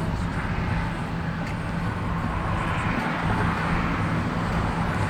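Steady vehicle noise: a low, even engine hum under a continuous rushing sound.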